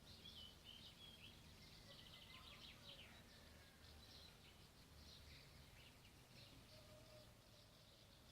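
Faint dawn birdsong: several small birds chirping and trilling in quick short phrases, over a steady low background rumble.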